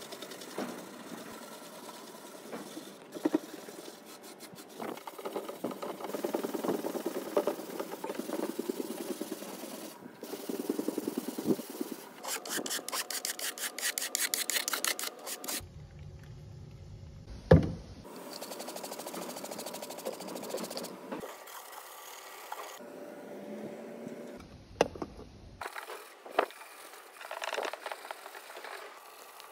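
A hand rubbing a pad back and forth over bare pine boards, a dry scrubbing in runs of strokes, fast and even for a few seconds in the middle, broken off and restarted several times. One sharp knock sounds a little past halfway.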